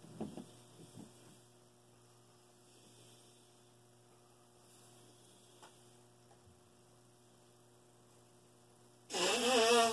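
Steady low electrical mains hum. A few short sniffs come in the first second. Near the end there is a loud, wavering, honking nose-blow under a second long, from a man with a severe head cold.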